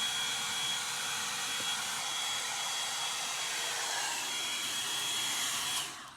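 Revlon One Step hot-air brush dryer running steadily, a rushing of blown air with a thin steady high whine, cutting off suddenly near the end.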